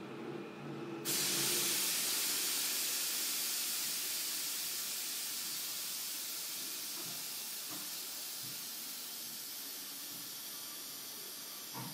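Compressed air hissing out under the floor of a JR Kyushu 305 series electric train standing at a station. It starts abruptly about a second in, just as a steady low hum stops, then slowly fades away.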